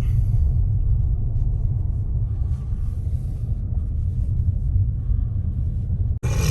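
Steady low rumble of a car on the move, heard from inside the cabin, broken off abruptly near the end.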